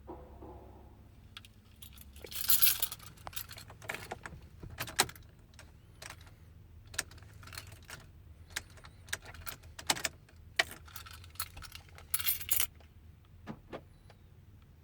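A key ring jangling on a key in the ignition as it is worked, with scattered sharp clicks and two louder jingling rattles, about two and a half seconds in and near the end. The truck does not start: it behaves as if the battery were dead.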